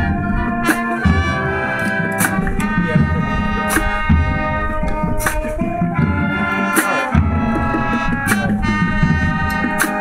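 Marching band playing live: brass holding loud chords over sousaphone bass, with sharp drum strokes through it.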